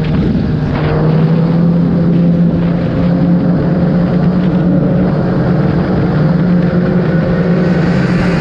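Kawasaki ZX-10R's inline-four engine running at a steady cruise as the bike climbs, its pitch edging up slightly a couple of times, under a constant rush of wind and road noise.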